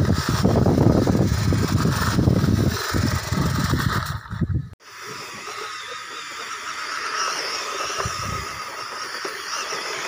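Loud low rumble of wind on the microphone for the first few seconds; then, after a sudden cut, the steady high whine of the Goolrc C12 truggy's brushed electric motor and gears as it drives.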